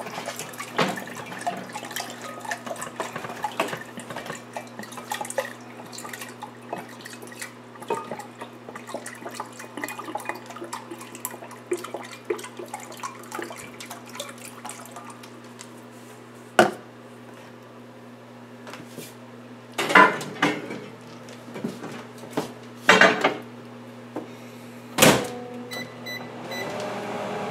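Hydrogen peroxide glugging from a plastic bottle into a glass measuring pitcher for about fifteen seconds. Then a series of clunks and knocks as the bottle is set down and the pitcher goes into the microwave, the loudest one the door shutting. Near the end come a few short keypad beeps, and the microwave starts running.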